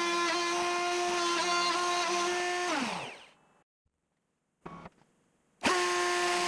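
A Bosch 1617 router spindle on a DIY CNC router whines steadily at high speed while milling aluminium with a single-insert carbide end mill. About three seconds in its pitch drops quickly and it goes almost silent. The whine starts again abruptly about two seconds later.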